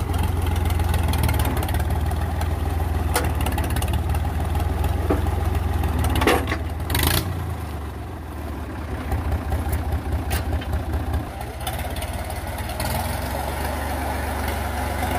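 Old diesel farm tractor engine running with a steady low chug. Two sharp clacks come about six and seven seconds in. The engine drops lower and runs unevenly for a few seconds, then builds back up as the tractor drives.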